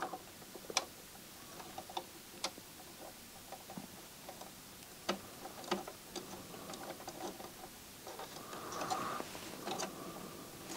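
Faint, irregular clicks and ticks of small plastic and metal parts as fingers handle and reseat a shifted part in the MiniDisc loading mechanism of a Sony MDS-JA333ES deck. A short soft rubbing sound comes near the end.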